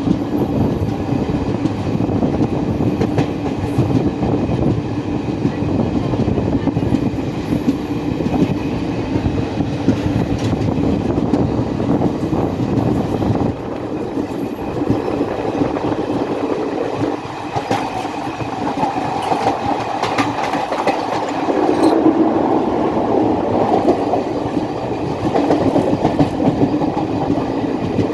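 Train wagons rolling along the track, their wheels clattering steadily over the rails.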